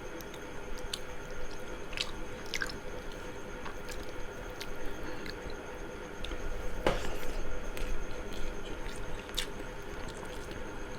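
A person chewing a mouthful of chicken biryani close to the microphone, with wet smacking and scattered mouth clicks; one sharper click comes about seven seconds in.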